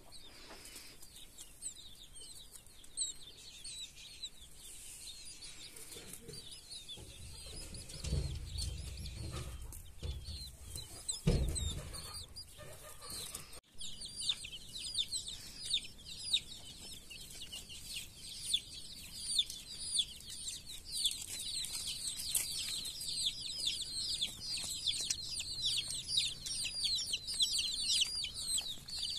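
Baby chicks peeping: many short, high-pitched peeps, sparse at first and a dense, continuous chorus from about halfway on. Some low rumbling and a single thump come in the middle.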